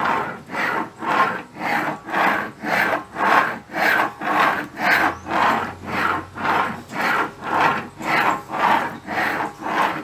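Electric power steering rack of a 2010 Ford Fusion V6, turned back and forth by hand at its input shaft, giving a rasping grind on each stroke, about two strokes a second. The noise comes from a water-damaged bearing in the rack's electric assist unit.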